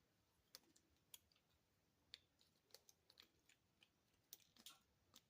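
Faint, irregular clicks and taps of hard plastic: a toy action figure's parts being handled and moved, with a small flurry of clicks near the end.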